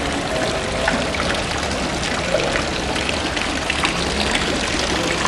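Water running and splashing steadily from a small stone courtyard fountain.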